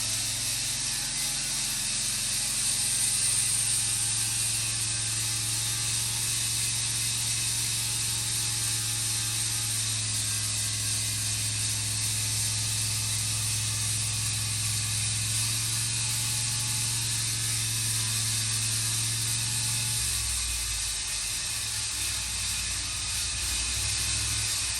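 Large band sawmill running through a log: a steady low engine hum under the even hiss of the band blade cutting. The low hum shifts about twenty seconds in.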